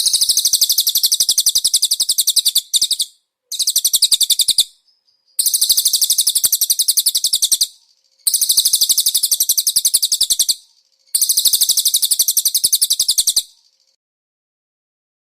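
Cililin bird singing a very rapid, high-pitched trill in five bursts of one to two and a half seconds each, with short pauses between them.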